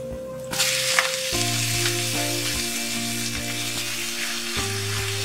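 Chopped spinach hitting hot mustard oil in a kadai, sizzling sharply from about half a second in and frying on steadily as the leaves are turned over.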